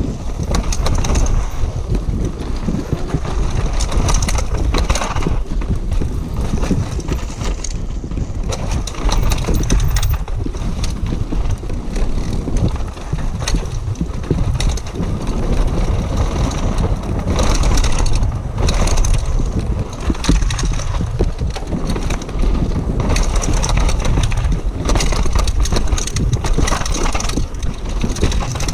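Downhill mountain bike ridden fast down a dirt forest trail: tyres crunching over dirt and roots and the bike clattering over bumps, over a steady low rumble of wind on the helmet camera's microphone.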